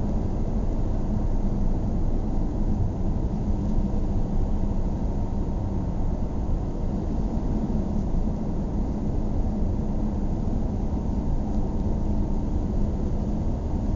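Car driving at a steady speed, heard from inside the cabin: an even, low drone of tyre and engine noise that does not change.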